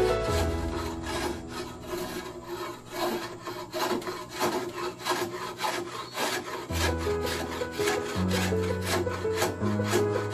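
Repeated scraping strokes of a hand tool shaving along a nibong palm-wood bow limb, over background music with sustained notes and a changing bass line.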